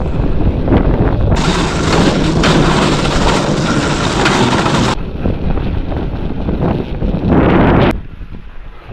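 Wind rushing over the microphone while riding an electric snow bike through snow. A loud hiss from about a second and a half in to five seconds in, and a last surge that cuts off sharply about eight seconds in.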